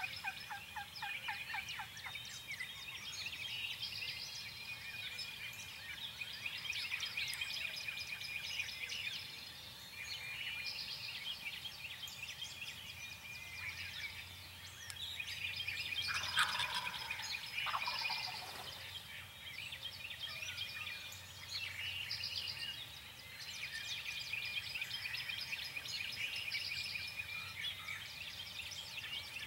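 A wild turkey gobbles about halfway through: one rattling call that falls in pitch, the loudest sound. A continuous chorus of songbirds chirps and trills underneath.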